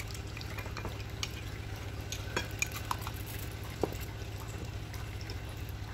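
A drinking glass and a spatula clink and tap lightly against a glass mixing bowl as yeast water is poured and scraped out into whipped egg batter. A handful of small, scattered clicks sit over a steady low hum.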